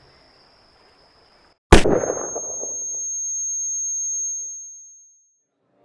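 A single gunshot goes off a little under two seconds in, with a sharp crack and a reverberating tail. A thin, steady high-pitched ringing tone follows, like ears ringing after the shot, and fades out about three and a half seconds later.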